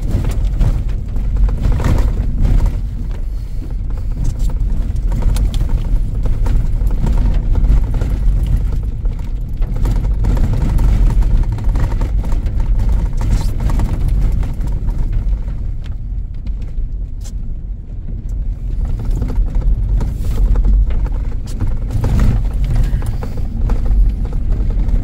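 Two-wheel drive pickup truck driving slowly over a rough, snowy dirt road: a steady low rumble of engine and tyres, with occasional knocks and rattles as it bumps along.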